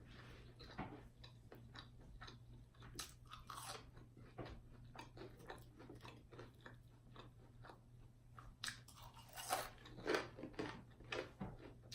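Close-up chewing of crunchy fried food: irregular crunches and mouth clicks, with a few louder crunches about nine to eleven seconds in.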